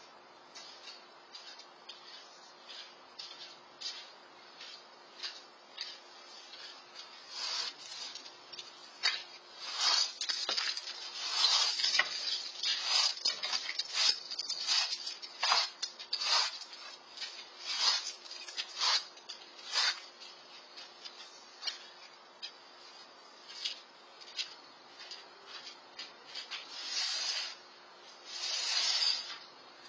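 Broom sweeping a concrete patio: a run of short brushing strokes, thickest through the middle and again near the end.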